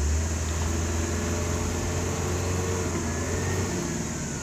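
Off-road 4x4 vehicle's engine running steadily with a low hum, its pitch bending slightly in the middle.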